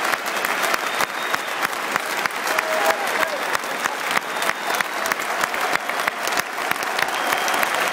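Large football stadium crowd applauding: dense, steady clapping from packed stands.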